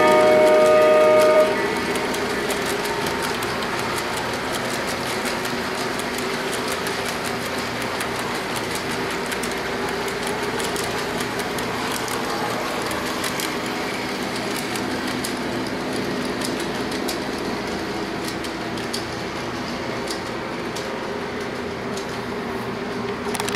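A Lionel model train's horn sounds a chord for about a second and a half. Then comes the steady rolling rumble of a long string of model tank cars passing on the track, with light scattered clicks from the wheels.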